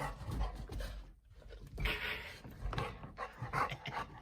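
Chocolate Labrador retriever panting in short, irregular breaths, with a louder breath about halfway through.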